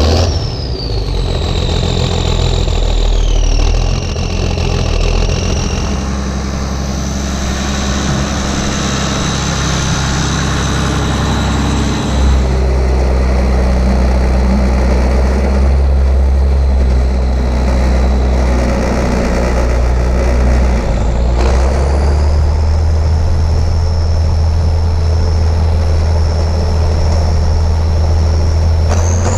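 A farm tractor's diesel engine running soon after a cold start, with a high whine over it that drops in pitch in steps during the first few seconds. The engine's note shifts about twelve seconds in and again about twenty-one seconds in.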